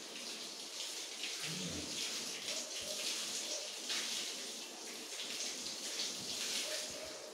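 Running water splashing steadily.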